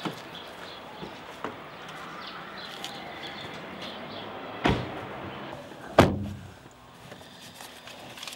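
Two car doors of a Ford slamming shut about a second and a half apart, the second one louder, after a few light clicks of the doors being opened.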